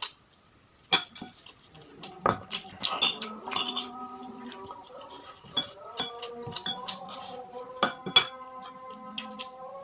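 Spoon and cutlery clinking and scraping against a bowl in sharp, irregular knocks, with faint steady tones underneath.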